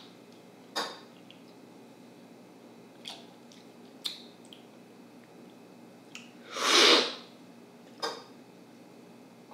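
Coffee being slurped hard from a cupping spoon: one loud, airy slurp about two-thirds of the way through, with the end of another right at the start. Short clicks of a spoon against the cups fall in between.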